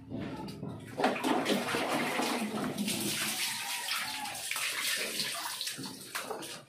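Water running and splashing, starting about a second in and going on steadily until it fades near the end.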